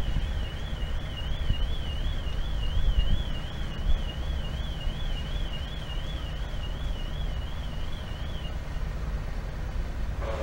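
A high electronic tone warbling steadily up and down about three times a second, like an alarm, stopping about eight and a half seconds in, over a low rumble.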